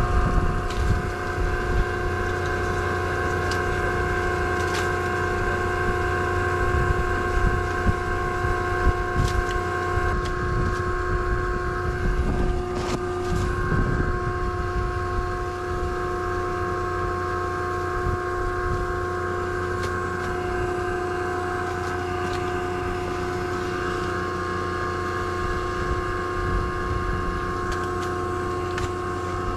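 Machinery running steadily: a low drone with a constant whine over it, and a few knocks now and then.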